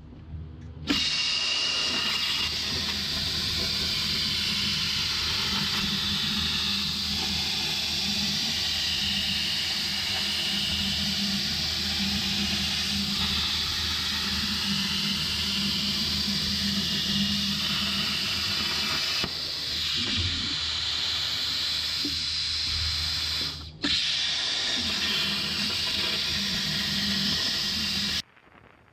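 CNC plasma torch cutting 10-gauge sheet steel on a ShopSabre plasma table: a loud, steady hiss of the plasma arc. It starts about a second in, breaks off for a moment about three-quarters of the way through, comes back abruptly, and stops just before the end.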